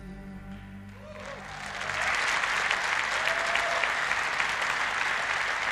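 Large audience applauding as a song ends: the applause swells up about a second in and then holds steady, a dense patter of many hands clapping.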